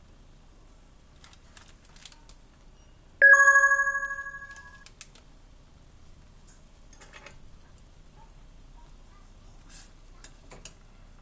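A single bell-like ding about three seconds in, one clear tone with overtones that fades away over about a second and a half. Faint clinks and taps of a utensil against a metal pot come and go around it.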